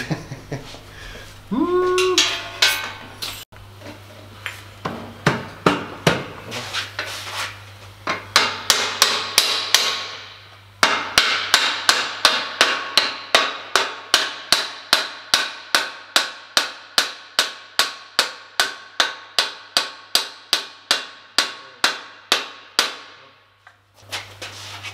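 Hammer blows on steel: a few scattered strikes at first, then from about eight seconds a fast, even run of about three strikes a second that stops shortly before the end.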